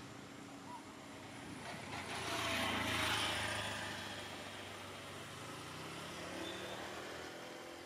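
A motor vehicle passing by, its engine noise swelling to a peak about three seconds in and then fading away.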